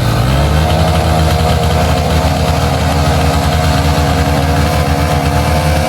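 Small four-stroke single-cylinder motorcycle engine idling steadily in neutral.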